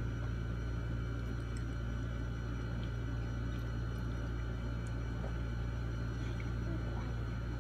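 Steady low electrical hum with a few faint, scattered ticks and clicks.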